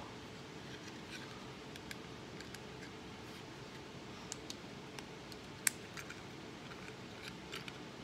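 Faint clicks and scrapes of a knife latch being pushed by hand into the lanced slot of a screen frame, with one sharper click a little past the middle, over quiet room tone.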